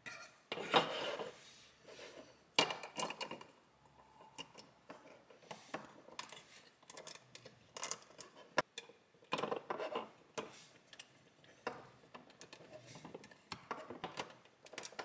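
Plastic LEGO bricks being handled and pressed together: a run of irregular sharp clicks with short rubbing scrapes as pieces are fitted onto the model.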